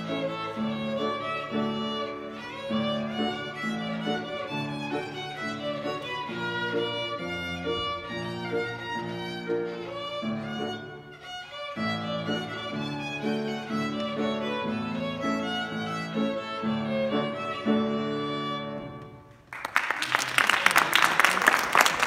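Solo violin playing a fiddle reel, with a brief break about eleven seconds in; the tune ends about nineteen seconds in and audience applause follows.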